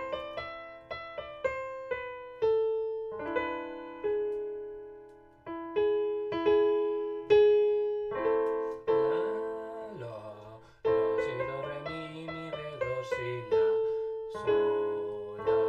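Piano playing a slow minor-key melody, single notes and chords each struck and left to fade. For a few seconds past the middle a man's voice sings along with it.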